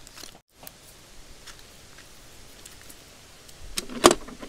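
Light handling noises with scattered faint clicks, then one sharp click about four seconds in, as a solar panel cable and its connector are handled and plugged into a portable power station.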